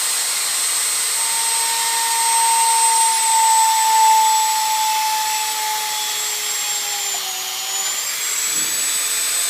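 Electric drill with a 1/8 in bit running steadily with a high whine while boring static port holes in a rocket airframe; its pitch sags briefly about seven seconds in as the bit is put under load.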